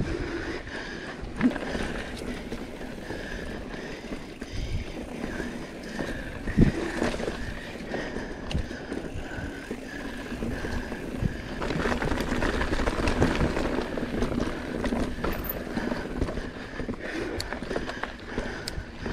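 Mountain bike riding over a rough dirt trail: tyres on dirt and loose stones with frequent sharp knocks and rattles of the bike over bumps, and wind on the microphone that grows louder about two-thirds of the way through. A steady high-pitched tone runs faintly in the background.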